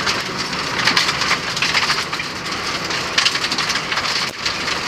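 Loose gravel and stones pelting the underside and wheel arches of a Nissan Micra rally car driven flat out on a gravel road, heard from inside the cabin: a dense, continuous crackle and hiss of tyres on stones.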